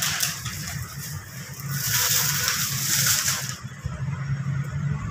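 Thin plastic carrier bag rustling and crinkling as a box of sweets is packed into it, loudest for a second or two midway. A steady low hum runs underneath.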